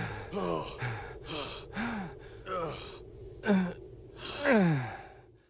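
Exhausted animated fighters panting and gasping for breath in voiced, strained breaths, a short one about every second. A louder gasp comes about three and a half seconds in and a long falling exhale follows, before the sound fades out.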